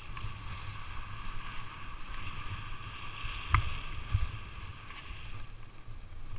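Skis sliding and carving on groomed snow, a steady swishing hiss, with wind rumbling on the microphone. A sharp knock about three and a half seconds in, and a dull thump just after.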